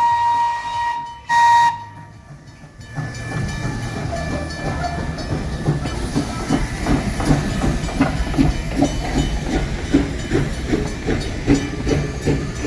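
Steam locomotive whistle blowing, its long blast ending about a second in and followed by a short second blast. From about three seconds in the engine chuffs steadily, about two exhaust beats a second, with hissing steam as the train gets under way.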